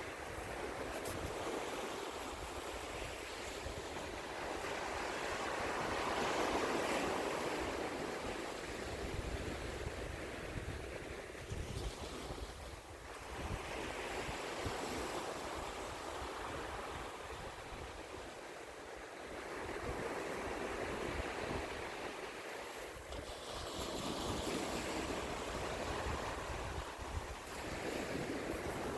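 Ocean waves breaking and washing on the shore, swelling and ebbing every several seconds. A low rumble of wind on the microphone comes and goes.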